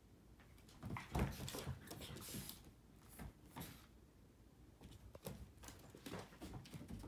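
A puppy and a cat tussling on a hardwood floor: scattered clicks and taps of claws and paws on the wood, with a louder thump and scuffle about a second in.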